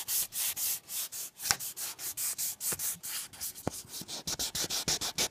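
800-grit wet/dry sandpaper on a sanding block rubbed back and forth over an aluminum model passenger car body, wet sanding out scratches. The strokes are fast and even, about four a second, with a sharp click about a second and a half in.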